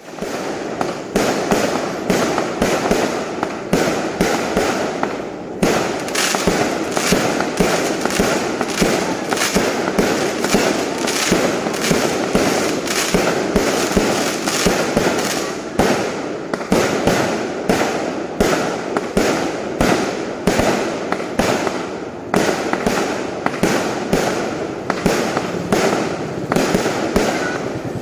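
Fireworks going off in a continuous barrage of sharp bangs and crackles, several a second, with no let-up.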